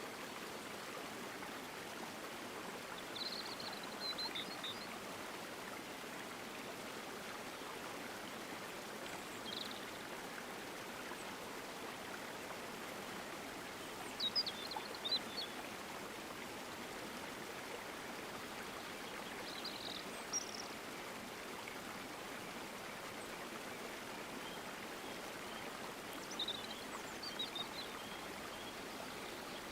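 A stream running steadily over rocks, with birds giving short high chirps a handful of times over it.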